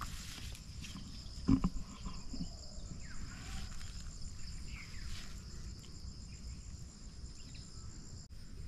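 Steady, high insect chirring, as of crickets, with one sharp knock about a second and a half in.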